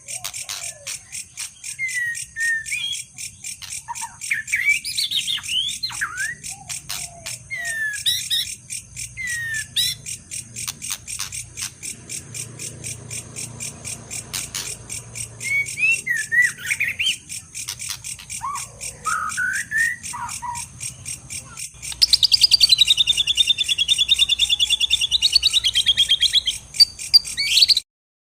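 Outdoor chorus of insects, a steady fast-pulsing high buzz, with birds chirping and calling over it in short rising and falling notes. About 22 seconds in, a loud, even trill starts and lasts about five seconds, then everything cuts off abruptly.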